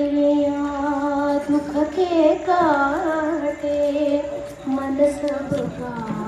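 A woman singing a Hindi song into a microphone, holding long steady notes with an ornamented, wavering phrase in the middle.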